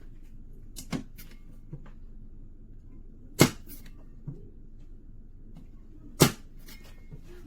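Small steel biometric pistol safe's lid being pushed shut three times, each a sharp clack with a lighter click just after, about every two and a half to three seconds. The lid fails to latch and won't close.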